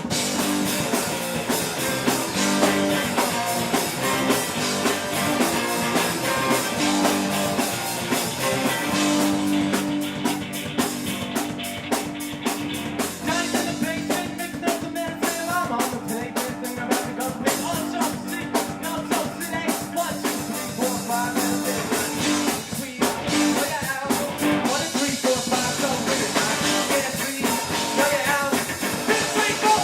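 Rock band playing live on electric guitars and drum kit, with a wavering melodic line over steady drums and cymbals.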